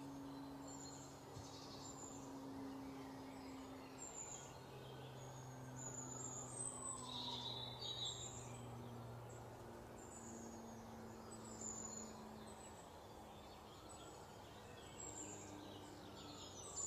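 Faint background ambience: a low steady hum with occasional faint, short high-pitched chirps, like distant birds.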